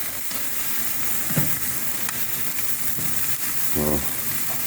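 Chicken sizzling on the grill of an oil-drum jerk pan over a hot fire, a steady hiss, with one short knock about a second and a half in.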